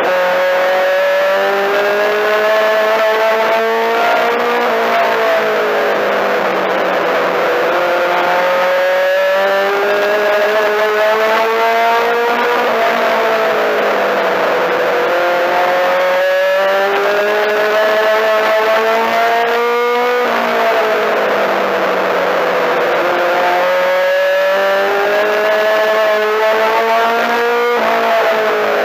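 Four-cylinder Mini-Stock race car engine heard from inside the car at racing speed. It climbs in pitch under full throttle down each straight and drops back as the driver lifts for each turn, a cycle of about eight seconds that repeats four times.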